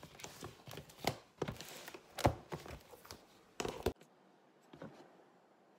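Handling of a ring binder on a kitchen counter: small knocks and clicks with paper rustling, sharpest about a second, two seconds and three and a half seconds in. It then drops off suddenly to a few faint taps.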